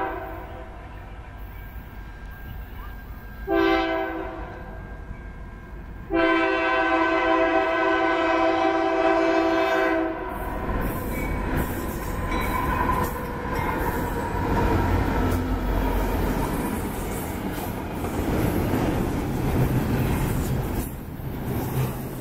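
Air horn on a Union Pacific GE AC44CWCTE diesel locomotive sounding a short blast and then one long blast of about four seconds, the close of a grade-crossing warning. From about ten seconds in, the lead locomotives rumble past close by, followed by the steady clatter and rattle of intermodal flatcar wheels on the rails.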